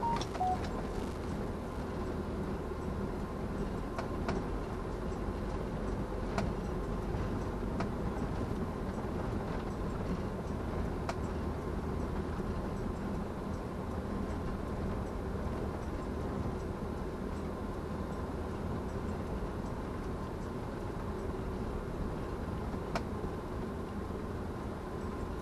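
Steady road and engine noise of a moving car, heard from inside the cabin, with a few faint clicks.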